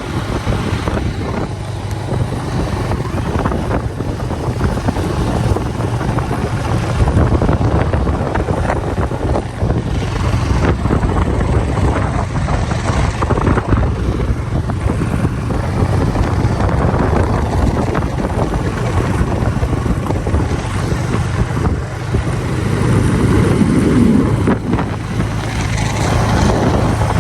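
A road vehicle running along the road: a steady engine and road rumble, with wind buffeting the microphone.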